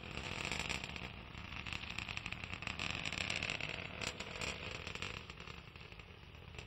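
Distant roar of an Atlas V rocket's RD-180 first-stage engine climbing away, a rough crackling rumble that swells at the start and fades slightly toward the end.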